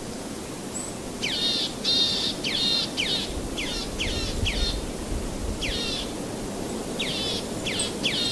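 A bird chirping: a run of short, quick chirps, each falling in pitch, in two groups with a pause in the middle, over a steady hiss.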